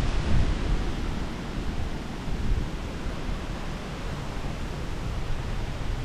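Strong wind blowing, with gusts buffeting the microphone in low rumbles that are heaviest at the start and then settle to a steadier rush.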